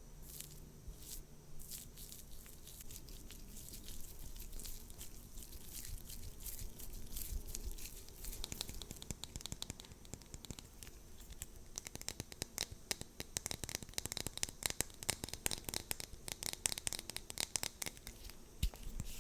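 Close-miked crisp crackling and rapid tapping from makeup items or packaging being handled, growing denser and louder about halfway through.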